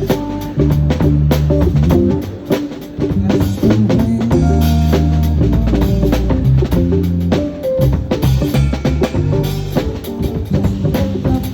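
Live band music with a drum kit playing a beat of bass drum and snare under held, changing bass notes.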